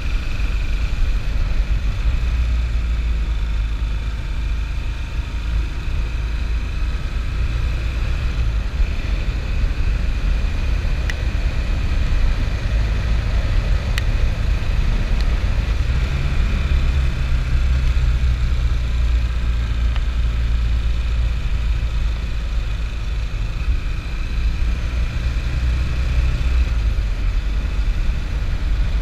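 Motorcycle ridden at road speed: steady engine drone under heavy wind rumble on the microphone. The engine note steps up about halfway through, and there are two brief ticks a few seconds apart before that.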